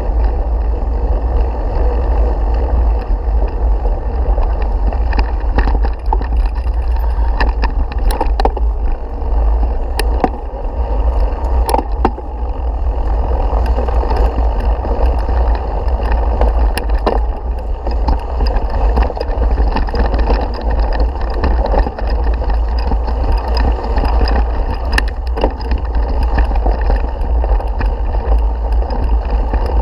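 Steady wind rumble on a moving mountain bike's action-camera microphone, with scattered sharp clicks and rattles as the bike runs over a rough dirt and grass trail.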